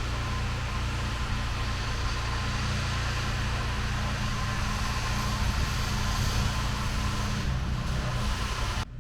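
A car's engine running steadily with a low hum, over even road and wind noise.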